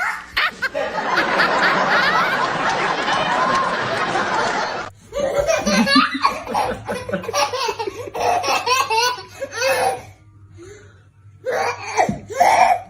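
Hearty laughter: for the first few seconds many laughs overlap in a dense wash, then it breaks into separate bouts of laughing, with a lull about ten seconds in and a last loud burst near the end.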